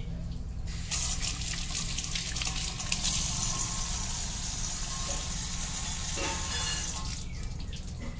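Water from a tap pouring in a stream into a stainless steel bowl. The water starts about a second in and stops about a second before the end, over a steady low hum.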